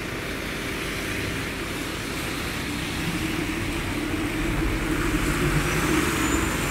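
MAZ-203 city bus pulling away from a stop, its engine working harder and growing louder about halfway in, with the hiss of tyres on a wet road.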